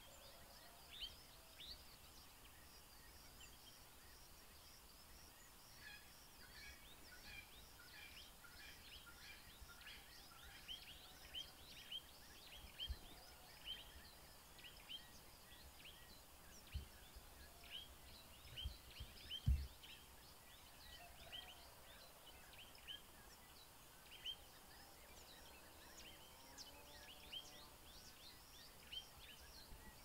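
Faint outdoor ambience of birds giving short, high, falling chirps, repeated irregularly throughout, over a steady low hiss. A few brief low thumps come near the middle, one of them the loudest sound in the stretch.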